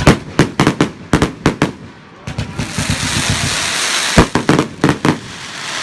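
Fireworks display: a quick run of sharp bangs, then about two seconds of dense crackling hiss, then four more bangs spaced about a third of a second apart.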